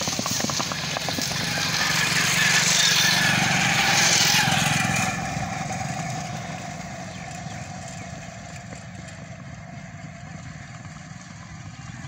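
Motorcycle engine running steadily as it follows galloping horses, whose hoofbeats fade out in the first second. A loud rushing noise sits over the engine for the first five seconds, loudest around three to four seconds in, then drops away, leaving a quieter steady engine hum.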